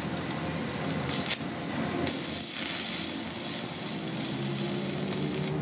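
Arc welding on a cracked steel truck axle housing, at the joint of the axle tube and flange: a brief burst about a second in, then the steady crackling hiss of the welding arc from about two seconds in, cutting off just before the end.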